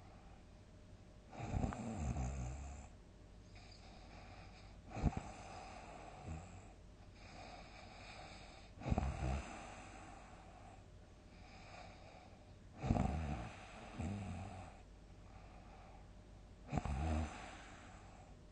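A sleeping person snoring heavily: a loud snore roughly every four seconds, five in all, one of them a short sharp snort, with quieter breaths between.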